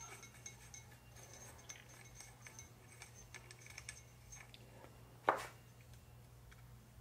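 Small metal engine parts clinking and tapping as they are handled, with one sharp knock about five seconds in.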